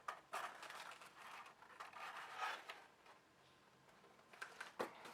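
Graphics card packaging being handled and pulled at: irregular scraping and rubbing, a near-quiet pause about three seconds in, then a sharp click near the end.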